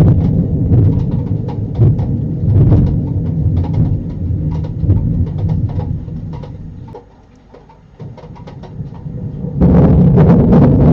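Thunder rumbling through a storm with crackling noise, fading away over several seconds until it is quiet; a second or so before the end, loud storm noise returns abruptly.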